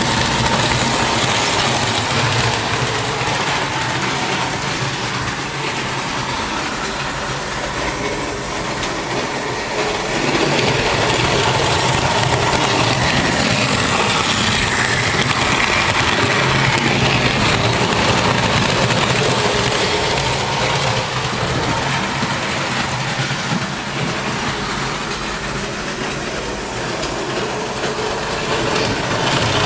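Märklin model trains running on the layout's track: a steady whirring rumble of small electric motors and wheels on rail.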